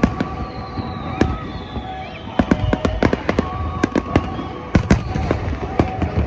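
Fireworks going off: many sharp bangs at irregular intervals, several in quick clusters.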